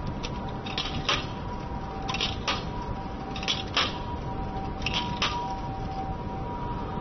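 Coins dropped one at a time into a popcorn vending machine's coin slot: four coins, each landing with a quick double click, about one coin every second and a quarter. A steady high electrical whine runs beneath.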